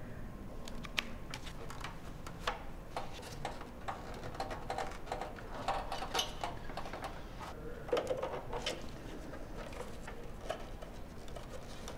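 Gloved hands handling and fitting small computer parts: an irregular string of light plastic and metal clicks, taps and rattles, a little busier about eight seconds in.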